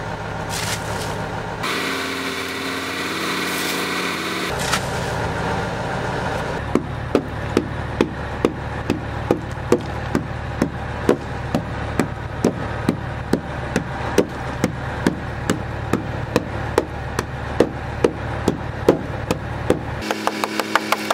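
Ice on a boat's deck being chipped with a hand tool: sharp knocks, about two a second, start about a third of the way in and quicken near the end, over a steady engine hum.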